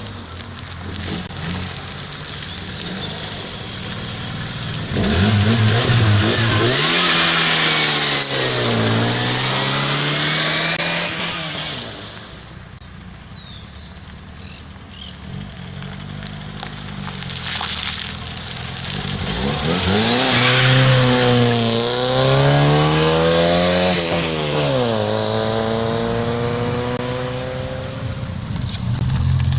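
Fiat Regatta sedans accelerating past one after another, their engines revving and the pitch sweeping up and down as each car goes by, with a quieter lull midway.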